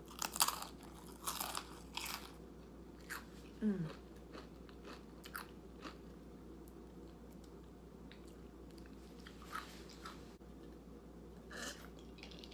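Crunchy chips being bitten and chewed: several crisp crunches in the first few seconds, then a few sparse, quieter crunches later on.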